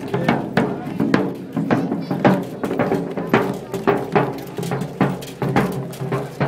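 Rope-tensioned field drum beating a steady marching rhythm, about three strokes a second, over the voices of the marching column.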